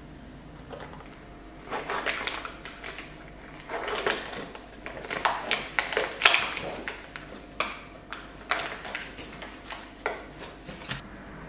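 Plastic tray pack of sliced salami being handled and its plastic film lid peeled back: crinkling and crackling in irregular bursts, loudest around the middle.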